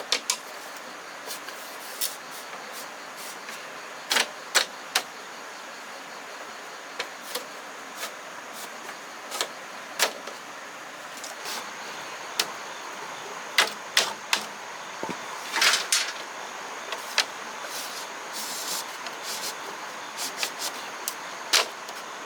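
Scattered light clicks and knocks at an irregular pace over a steady background hiss, with a cluster of sharper knocks in the middle.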